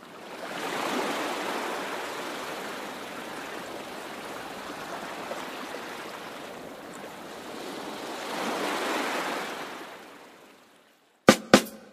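Ocean surf: a steady rush of waves that swells about a second in and again near the end, then fades away. A few sharp percussive hits follow at the very end.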